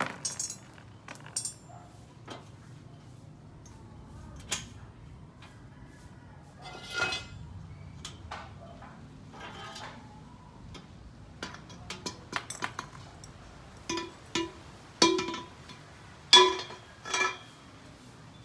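Steel angle-iron pieces, bolts and nuts clinking and knocking together and being set down on a concrete floor during assembly of a bolted frame. The knocks come irregularly, more often in the second half, and several ring briefly with a metallic tone.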